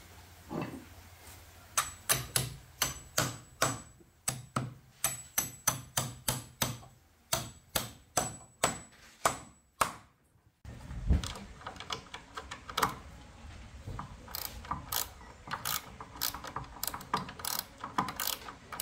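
A hammer knocking steel carriage bolts down into drilled holes in hardwood boards, about three sharp blows a second with a faint metallic ring. After a short break comes quicker, irregular clicking from a ratchet spanner as the nuts are tightened on the bolts.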